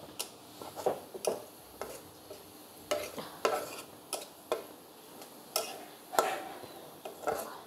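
Long metal spatula scraping and clinking against a steel wok, about ten irregular strokes, while stirring onions frying in oil, with a faint sizzle between strokes.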